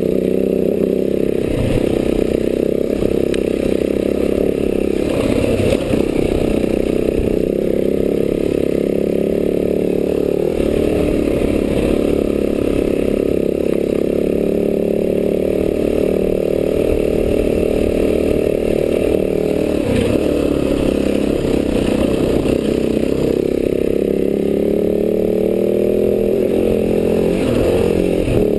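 Enduro dirt bike engine running steadily while riding a dirt trail, its pitch rising and falling a little with the throttle, heard from the rider's helmet.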